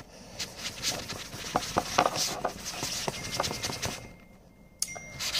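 Cotton swab scrubbing inside a fabric pencil case while hands brush against the zipper: irregular scratching and rubbing close to the microphone. It stops about four seconds in and is followed by a single click.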